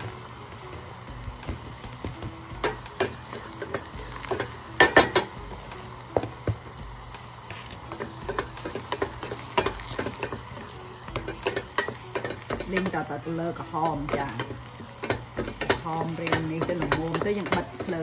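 Food sizzling as it is stir-fried in a pan, with a utensil scraping and knocking against the pan throughout.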